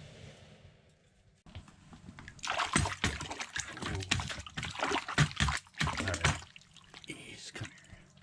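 A northern pike splashing and thrashing in the water of an ice-fishing hole as it is landed: a burst of sharp, irregular splashes starting about two seconds in, lasting about four seconds, then dying down.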